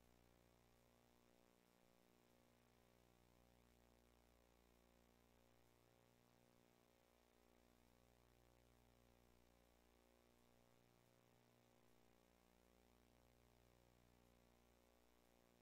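Near silence: a faint, steady electrical hum with its overtones, unchanging throughout.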